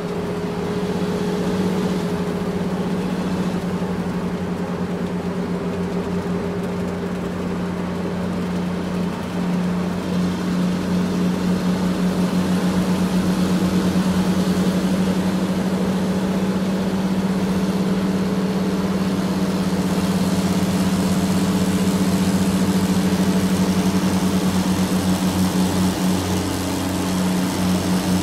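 Diesel engine of heavy construction machinery running steadily with a low hum, its level pulsing regularly from about a third of the way in.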